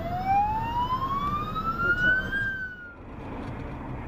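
Ambulance siren wailing in one slow sweep that falls and then rises for a couple of seconds. It cuts off abruptly about three seconds in, leaving steady car road noise.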